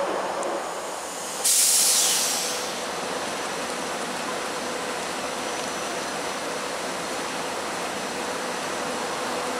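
SEPTA Silverliner IV electric multiple-unit train at the platform. About a second and a half in, a sudden loud burst of air hiss fades away over about a second. After that there is a steady hum with one steady tone.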